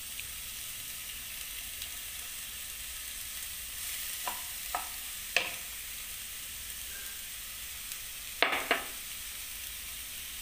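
Chopped onion, cauliflower and cabbage sizzling steadily in hot oil in a frying pan. A few short knocks come through about halfway in, and a louder pair close together near the end.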